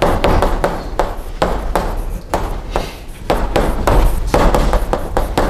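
Chalk tapping and scraping on a blackboard as an equation is written, a quick irregular run of sharp taps.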